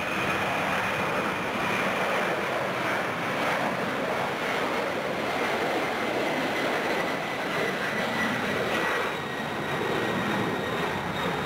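Boeing 767-300's twin turbofan engines at takeoff power as it climbs away just after lift-off: a steady, loud jet roar with a faint whine that slowly falls in pitch.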